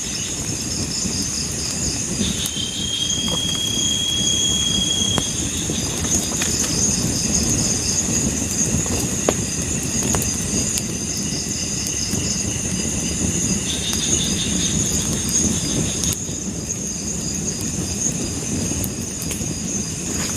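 Chorus of forest insects: a steady high buzz with pulsing trills that fade and return. A single held whistle-like note sounds about two seconds in and lasts about three seconds, all over a low steady noise.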